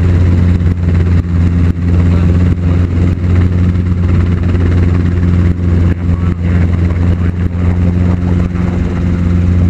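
Training helicopter's engine and rotor running with a loud, steady low drone.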